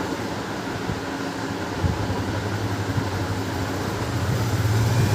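Steady low mechanical hum with hiss, swelling slightly near the end, with a brief knock about two seconds in and another about three seconds in.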